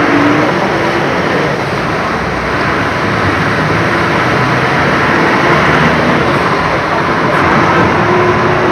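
Steady road traffic noise: vehicle engines running and tyres hissing through water on a flooded highway, with a few faint engine tones.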